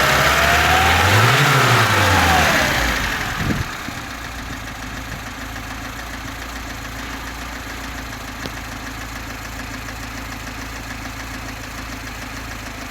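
VAZ-2101 overhead-cam four-cylinder engine blipped once, rising and falling in pitch, then settling to a steady idle about three seconds in. Under it runs a knock from under the valve cover that the owner cannot explain, since the rockers, camshaft, valves, timing chain and pistons are new, the valves are adjusted and oil pressure is good.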